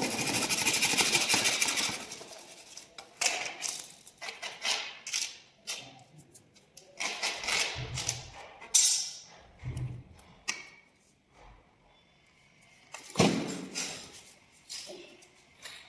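Plumbing fittings and tools being handled. There is a burst of hiss for about the first two seconds, then scattered clicks and scrapes, with a few dull knocks later on.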